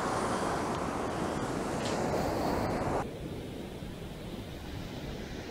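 Surf washing onto a beach, a steady rushing that drops suddenly to a quieter wash about three seconds in.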